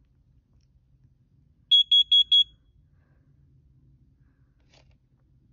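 First Alert carbon monoxide alarm sounding on its test button: four quick, loud, high-pitched beeps in a row about two seconds in, the four-beep pattern a CO alarm uses for its warning.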